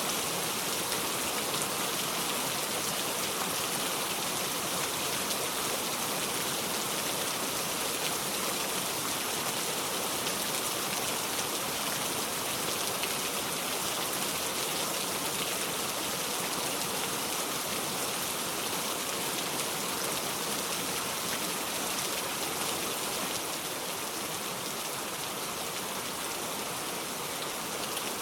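Steady rain falling, an even hiss with no pauses, easing slightly near the end.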